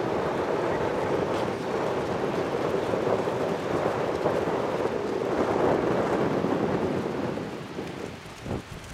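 Strong wind buffeting the microphone in a steady, loud rush, easing somewhat near the end.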